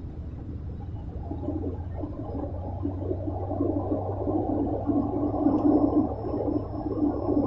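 Propeller airliner cabin noise: a steady low drone from the turboprop engines and propellers, joined about a second in by a rougher, wavering rumble that grows louder.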